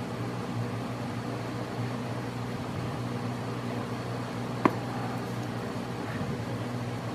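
A steady low mechanical hum, with a single sharp click about four and a half seconds in.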